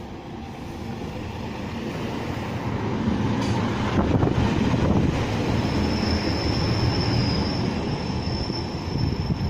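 A Class 142 Pacer diesel railbus pulling into the platform, its rumble growing louder over the first few seconds. A high, steady squeal sets in about halfway through and holds.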